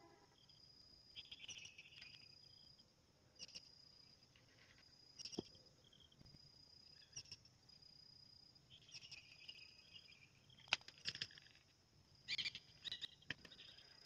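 Faint outdoor ambience: a steady high-pitched insect trill that breaks off and resumes, with bursts of short chirping calls and a few sharp clicks, the loudest near the end.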